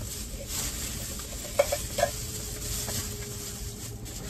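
Paper food wrappers rustling and crinkling, with a few small clicks around the middle.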